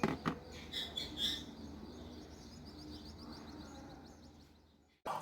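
Faint bird chirping: a quick run of short, high chirps that fades away, then the sound cuts off suddenly near the end.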